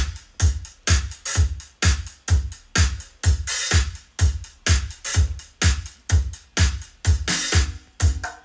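Electronic dance music with a drum-machine beat, a strong bass kick about twice a second, played through a bare woofer and a smaller speaker driver wired up with clip leads for a test.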